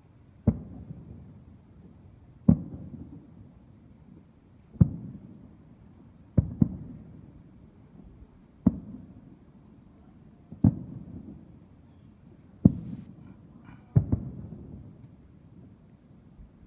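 Distant fireworks shells bursting: about nine sharp booms at roughly two-second intervals, two of them close together near the middle, each trailing off in a low rolling echo.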